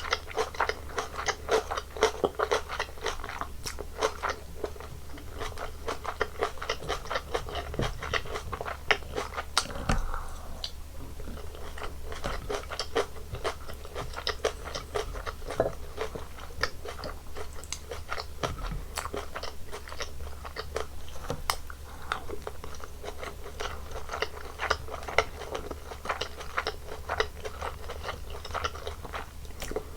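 Close-miked chewing and crunching of a Korean home meal of rice, bulgogi, kimchi and laver: a dense, irregular run of small wet crunches and mouth clicks.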